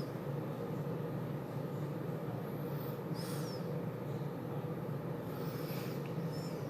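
Steady low city background hum with a few short, high bird chirps, about three seconds in and again near the end.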